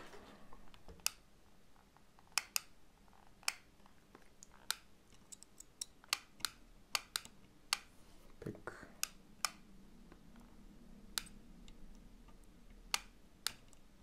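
Irregular sharp clicks and light taps, about twenty over the stretch, from a circuit board and its component leads being handled and knocked against the workbench during soldering.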